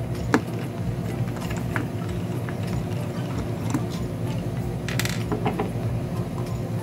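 Small clicks and scrapes of a screwdriver turning the security Torx screws in the plastic housing of an electric skillet heat controller. A louder clack comes about five seconds in, as the screwdriver is set down on the wooden bench.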